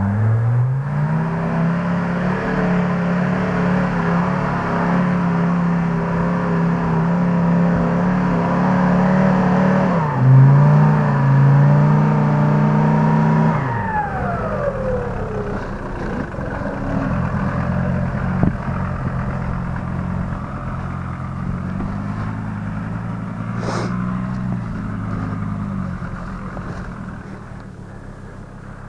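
GAZ-69 off-road vehicle's engine revving hard under load on a steep climb. The revs rise in the first second and hold high, jump again about ten seconds in, then drop away about fourteen seconds in. After that they run lower and uneven, fading near the end.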